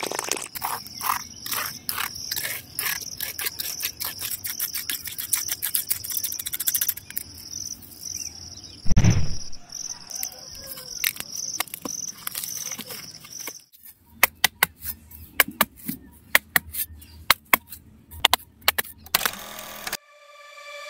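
Insects chirping in a steady, fast-pulsing high trill through the first half, over scattered clicks and taps from handwork. One loud thump comes about nine seconds in. A run of sharp, separate clicks follows in the second half.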